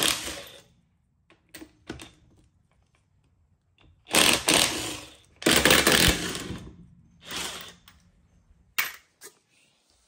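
Cordless impact wrench spinning lug nuts off a truck's rear wheel in a few bursts of about a second each, with small metallic clicks and clinks between them.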